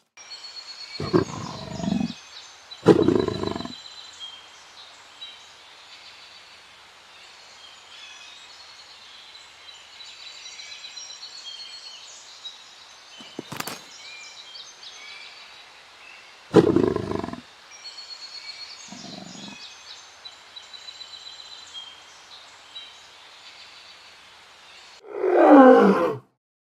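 Leopard calling in several short growls, with the longest and loudest near the end, over birds chirping throughout.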